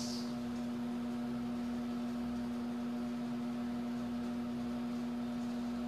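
Steady hum with a faint hiss under it: the room tone of the recording.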